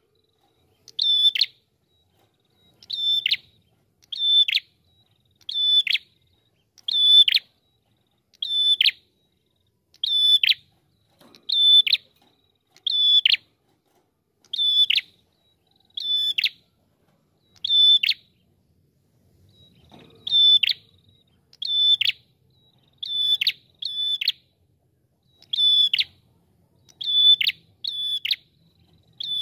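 Red-headed tailorbird (prenjak kepala merah) calling: one short, high note repeated over and over about every second and a half, each note dropping sharply at its end. There is a brief break about two-thirds of the way through.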